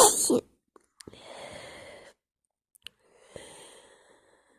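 A person's loud sneeze right at the start, followed by two long, breathy breaths.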